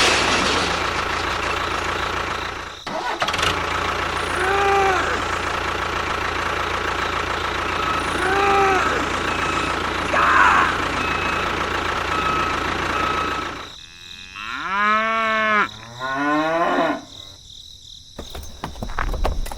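A small motor runs steadily with a hum, dropping out briefly near three seconds. From about fourteen seconds in, cattle moo in several long calls that rise and fall.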